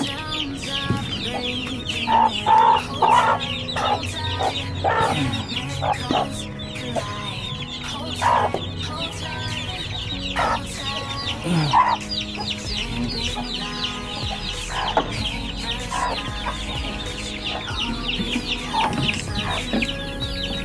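A brood of chicks peeping all the while in quick, high chirps, with hens clucking over them and giving louder calls every few seconds.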